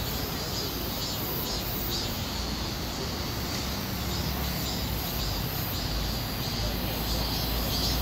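Cicada singing at close range: a high, rasping buzz that pulses a few times a second and grows stronger near the end, over a low background rumble.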